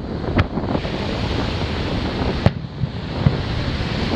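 Aerial fireworks shells bursting: sharp bangs about half a second in and again at about two and a half seconds, with a smaller bang soon after, over a steady rushing background.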